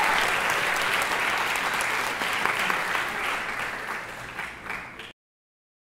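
Audience applauding, the clapping fading slightly and then cutting off abruptly about five seconds in.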